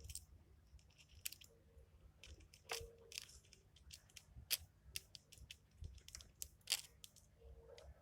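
Faint, irregular small clicks and taps of hand tools and plastic and metal phone parts handled during a smartphone repair, with louder clicks about three seconds in and near the seven-second mark.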